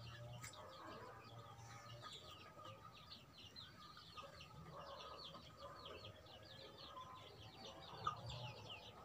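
Faint background of small birds chirping continuously in quick, short notes, with a single short knock about eight seconds in.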